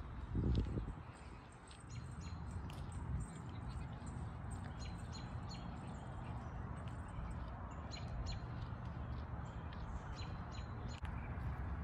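Small birds chirping in short, repeated calls over a steady low rumble, with a brief louder burst of low noise just after the start.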